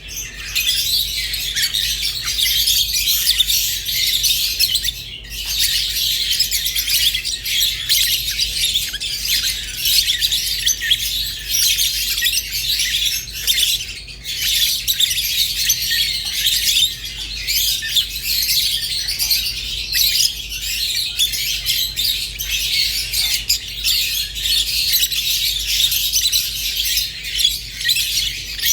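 Rosy-faced and Fischer's lovebirds chattering without a break: rapid high chirps, tweets and squawks, with two brief lulls.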